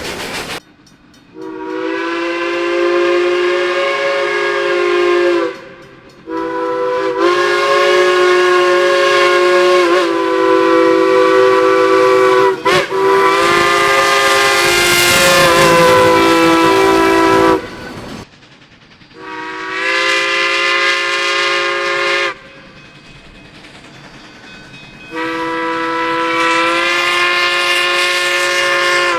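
A locomotive's multi-note chime sounding a chord of several steady notes in a series of long blasts. Each blast lasts several seconds, and the breaks between them are short.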